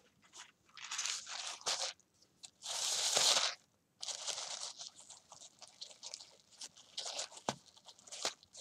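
Paper wrapping on a small ribbon-tied parcel rustling and crinkling as it is handled and the ribbon untied, in irregular bursts, with one sharp tap near the end.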